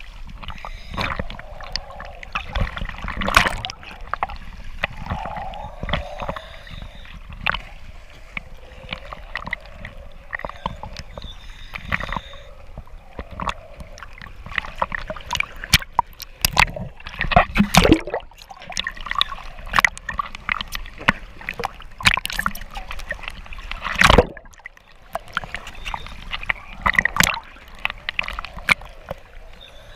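Choppy sea waves splashing and sloshing against a camera held at the water's surface, in irregular slaps, the loudest just before and about a third of the way through and again near the 24-second mark.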